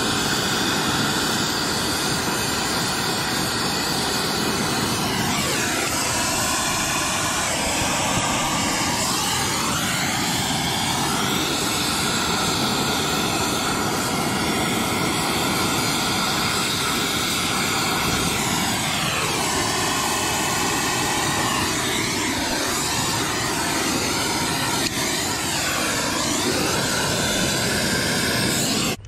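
Oxy-acetylene torch flame burning with a steady, loud rushing hiss while brazing a copper refrigerant line at an air-conditioner condenser's service valve, its tone sweeping slowly as the flame is moved. The torch is shut off and the sound cuts off suddenly near the end.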